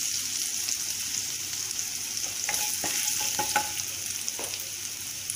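Ginger-garlic paste and green chilli sizzling steadily in hot oil in a kadhai as they are lightly fried, with a few clicks and scrapes of the spatula against the pan around the middle.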